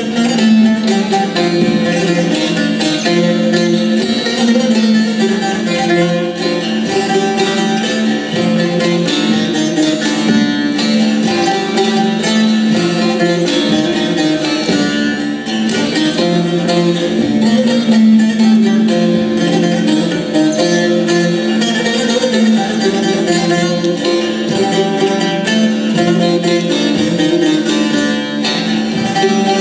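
Two long-necked bağlamas (Turkish saz) playing an Aegean folk dance tune from Aydın together in rapid picked notes over a steady low drone.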